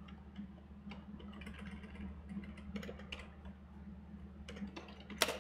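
Computer keyboard typing: scattered, irregular keystroke clicks, with a few louder keystrokes near the end, over a steady low electrical hum.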